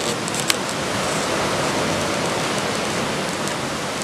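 Steady, even rushing noise with no pattern or rhythm, and a faint click about half a second in.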